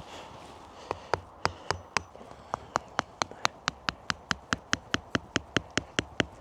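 A quick, even run of sharp taps or knocks, about four a second, starting about a second in.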